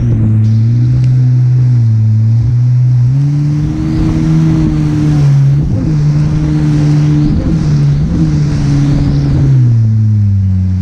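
Watercraft engine running hard at speed, its pitch stepping up and down every second or two as it works through the wake, over the rushing hiss of water spray.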